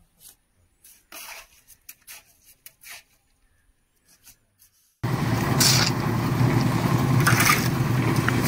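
A few short scrapes of a mason's trowel working mortar on concrete blocks, then about five seconds in a sudden switch to the loud, steady running of a concrete mixer's engine, with shovel scrapes in the wet concrete.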